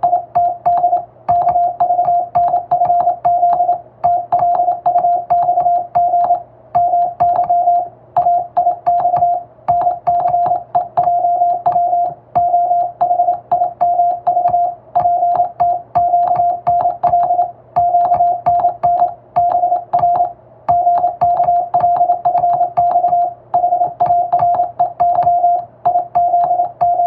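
Morse code keyed by hand on a telegraph key: a single steady mid-pitched tone switched rapidly on and off into dots and dashes, with short gaps between letters and words. Each keying carries a faint click.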